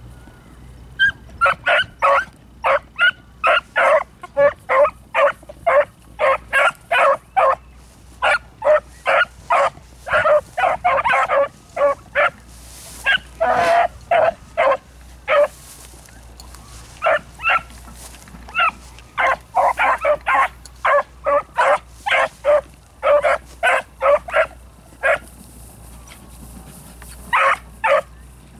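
Pack of hunting beagles giving voice in short, rapid barks, several a second, while running a rabbit, with two brief pauses in the cry.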